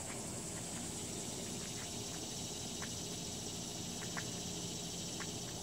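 Steady high-pitched drone of insects, with a few short faint chirps scattered through it.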